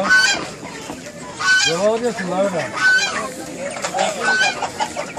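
Caged broiler chickens clucking and squawking, with a short high call repeated about every second and a half among louder rising-and-falling squawks.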